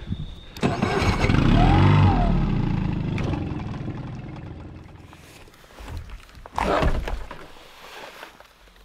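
A 25-horsepower outboard motor on a small jon boat starts up, its engine note rising and falling about two seconds in, then running and fading away. A second short, loud noise comes about seven seconds in.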